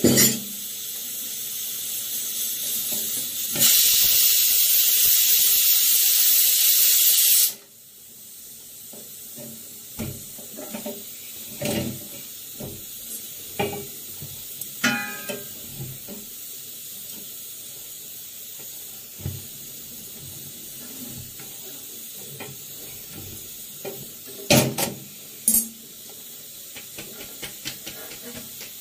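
Pressure cooker venting steam: a hiss that builds, then a loud, high steam hiss for about four seconds that cuts off suddenly. After it, light metallic clinks and knocks of tongs and an iron tawa, two sharper knocks near the end.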